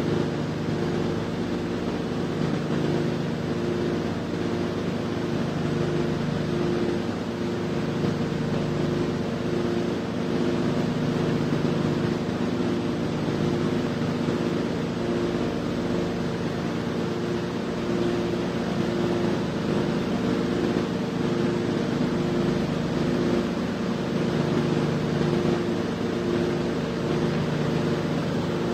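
A steady, even drone of several held low tones over a hiss, with a faint regular flutter in one of the tones; no speech.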